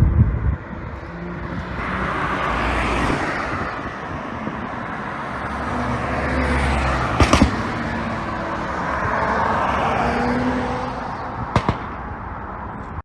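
Porsche Cayenne Coupe running on a pop-and-crackle ECU tune: the engine and exhaust swell and fade three times, with sharp exhaust pops, a quick cluster about seven seconds in and a single crack near the end.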